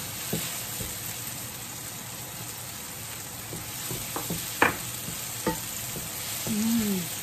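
Diced onion and garlic sizzling as they sauté in a nonstick frying pan, stirred with a wooden spatula that knocks against the pan a few times.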